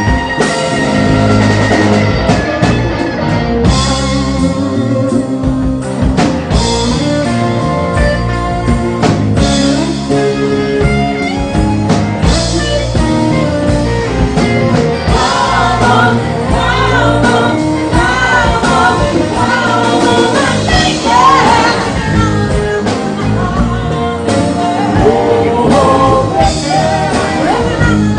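A live rock band playing, with electric guitar and drum kit. From about halfway in, a woman sings over the band in long, wavering held notes.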